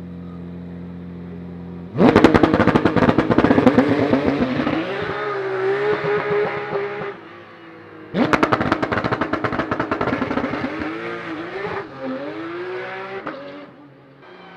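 Porsche 911 GT3 Cup race cars making practice starts. A flat-six engine runs steadily, then one car launches with a sudden loud blast of rapid exhaust pulses, its pitch rising through a gearshift as it pulls away and fades. A second car launches the same way about six seconds later.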